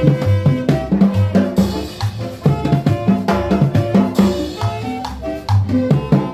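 Live band playing upbeat Latin dance music: saxophone over a stepping bass line, with drums and cymbal keeping a quick steady beat.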